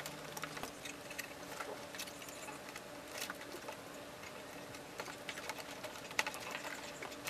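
Irregular small clicks, taps and scrapes of a cable being worked by hand through a plastic boat console and out a hole in the dash.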